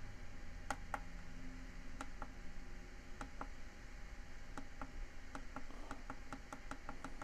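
Light, irregular clicks from a push button on top of a Keebly digital alarm clock. It is pressed over and over, about a dozen times, to step through the clock's level settings.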